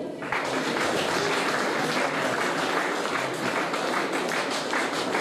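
Audience applauding: a dense, steady patter of many hands clapping that starts just after the beginning.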